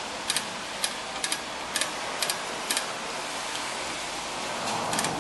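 Light clicks, about two a second, that stop about three seconds in, over a steady hiss: the star adjuster wheel of a 2000 Honda CR-V's rear drum brake being turned a little at a time with a screwdriver, clicking tooth by tooth as the shoes are adjusted out.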